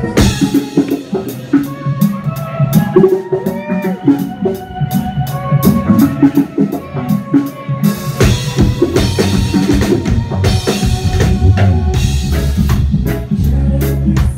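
Live reggae band playing, with the drum kit loudest, keeping a steady beat over the bass. The bass grows heavier about eight seconds in.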